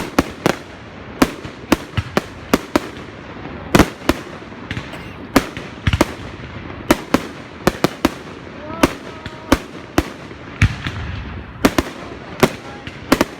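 Fireworks going off: a quick, irregular series of sharp bangs, roughly two a second, some close together in pairs.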